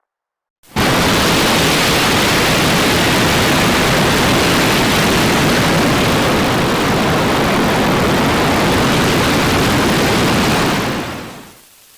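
Loud, steady hiss of noise across all pitches, like static, cutting in abruptly under a second in after a brief silence and fading away near the end.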